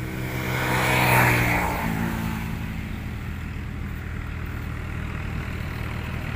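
A motor vehicle's engine running steadily at a low hum, with a louder swell about a second in that falls in pitch as it fades.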